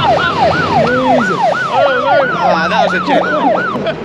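A yelping siren, its pitch sweeping up and down about three times a second, with a second overlapping yelp for a moment past the two-second mark, ending just before the four-second mark.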